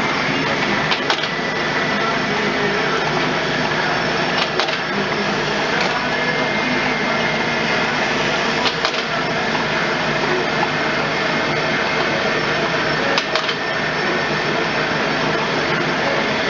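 A Traub A25 cam-type automatic lathe runs steadily while machining brass bar stock. A sharp, often doubled click comes about every four seconds, in a regular rhythm.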